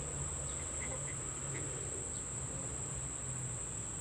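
A steady, high-pitched insect drone from cicadas or crickets, over a low rumble.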